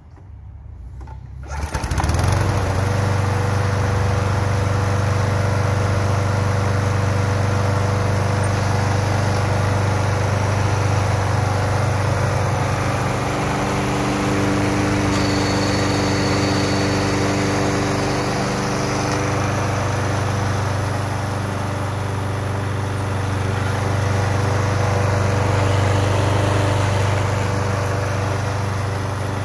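Toro Super Recycler lawn mower engine starting up about two seconds in, then running steadily.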